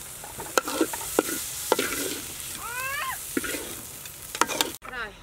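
Metal spatula scraping and knocking against a steel wok as fried snails are scooped out onto a plate, over the hiss of the hot pan. A short squeaky call rises about halfway through.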